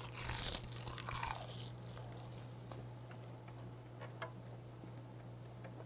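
A person bites into a wrap of half-dried saury (gwamegi) rolled in a sheet of dried laver (gim): a crisp crunch of the seaweed for about the first second and a half. It is followed by quieter chewing with small scattered clicks.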